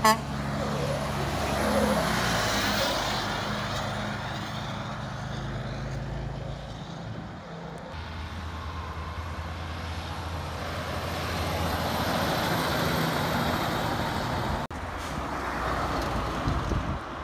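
Trucks driving past one after another: a flatbed truck, then a dump truck coming closer, then a pickup tow truck. Each gives a steady diesel engine drone with tyre and road noise, and the sound changes abruptly about halfway through and again near the end where the clips join.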